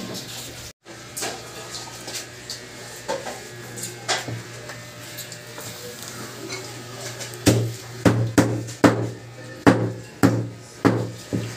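Dishes and utensils clattering, with scattered light clicks at first and then a run of sharp knocks, about two a second, near the end. A steady low hum runs underneath.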